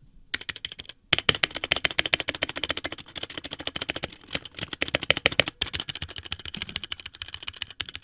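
Fast typing on a 60% mechanical keyboard, miked up close: a quick, dense clatter of keystrokes on HyperX Red linear switches under double-shot PBT keycaps, with a short break about a second in.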